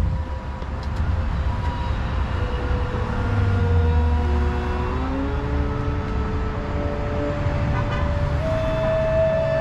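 Improvised music from a violin and a second instrument: long held notes that slide slowly from one pitch to another, at times two notes at once, over a steady low rumble of street traffic.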